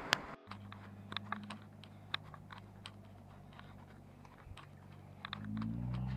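Scattered light clicks and taps over a low steady hum, which rises in pitch near the end.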